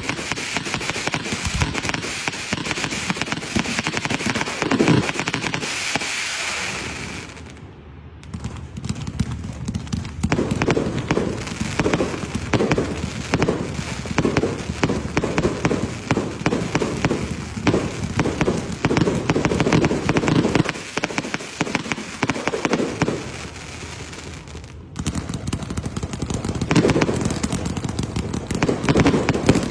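Firecrackers going off in dense strings of rapid crackling pops, with a steady hiss alongside for the first several seconds. The crackling thins out briefly about eight seconds in and again just before twenty-five seconds, then picks up again.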